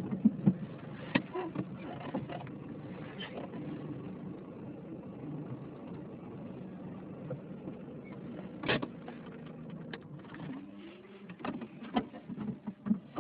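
A steady low engine hum, as of a vehicle running at idle, with scattered clicks and knocks throughout.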